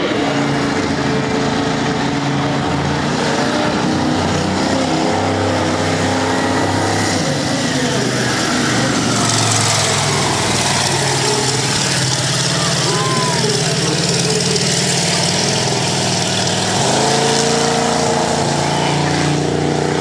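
Monster truck engine running loud, its revs rising and falling as the truck drives, with the note stepping up about 17 seconds in.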